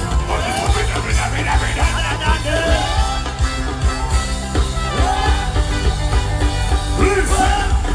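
Loud amplified music with a heavy, steady bass beat and some singing over it, played through a PA sound system.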